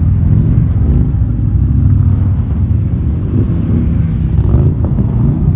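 Several motorcycle engines running as a slow column of bikes passes, a steady low sound with no break.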